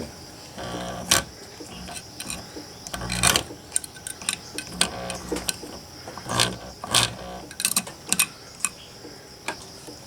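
Small magnetically driven water transfer pump, just plugged in, clicking and ticking irregularly with short spells of low hum as its magnet-coupled impeller fails to spin up. The owner judges the pump junk.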